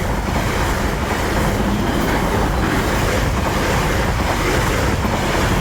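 South Western Railway Class 444 electric multiple-unit train running through the level crossing at close range, a steady loud rumble and rush of wheels on rail.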